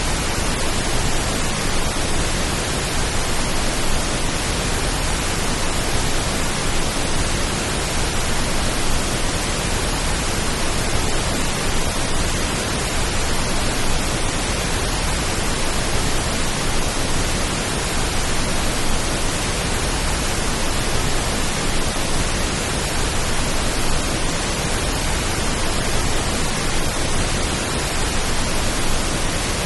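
Steady pink noise: an even, unchanging hiss across the whole range, with no drops or patters standing out. It is made as a stand-in for the sound of rain.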